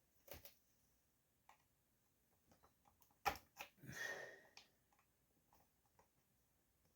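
Mostly quiet small-part work on a chainsaw piston: a few faint clicks, then a sharp click a little over three seconds in followed by a brief metallic scrape, from a tool working the piston's wrist-pin circlip out.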